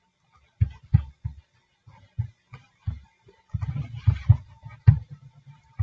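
Computer keyboard and mouse clicks: scattered single taps, then a quick run of keystrokes about three and a half seconds in as a search is typed.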